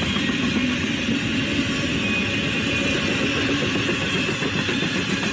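Norfolk Southern double-stack intermodal freight train rolling past, a steady rumble and rush of wheels on rail.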